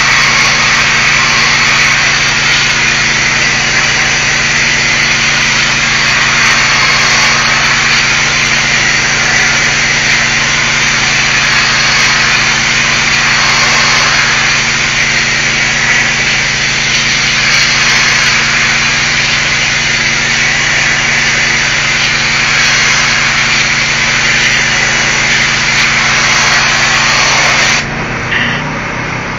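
Pressure washer jet spraying brick: a loud, steady hiss of water over a constant engine hum. Near the end the spray cuts off suddenly and only the engine keeps running.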